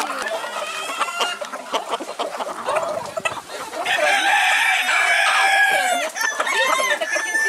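A flock of white crested chickens clucking, then a rooster crowing once, a long crow of about two seconds starting about four seconds in.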